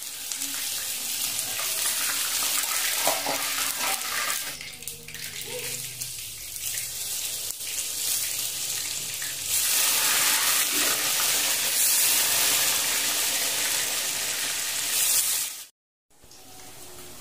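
Hot oil sizzling in a wok as food deep-fries, a steady hiss that grows louder and fuller from about ten seconds in.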